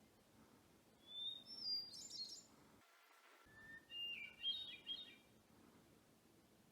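A songbird singing two short, warbling phrases of quick high notes, about a second in and again about four seconds in, faint over a quiet background.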